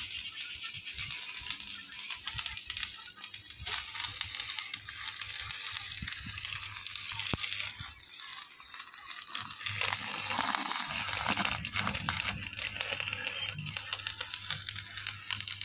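Stick (shielded metal arc) welder crackling and hissing steadily as a steel bracket is welded onto rectangular steel tube, with a steady low hum underneath.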